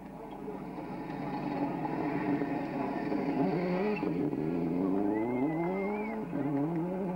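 Toyota Corolla WRC rally car's turbocharged four-cylinder engine coming closer on gravel, growing louder, as the car slides through the corner with gravel spraying from its wheels. About four seconds in the engine note dips, then climbs through the gears as the car accelerates away.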